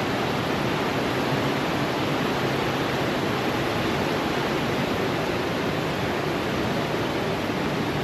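Waterfall rushing: the steady, unbroken noise of falling water.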